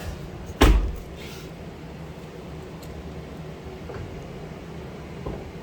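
A car door shutting with a single heavy thump about a second in, followed by a few faint clicks.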